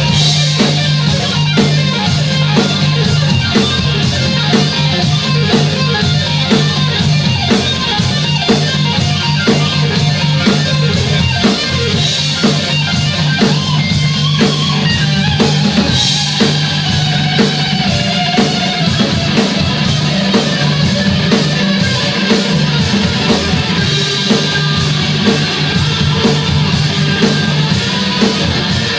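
Instrumental rock-funk jam by a trio played live: electric guitar, electric bass and drum kit keep a steady beat, with occasional cymbal crashes.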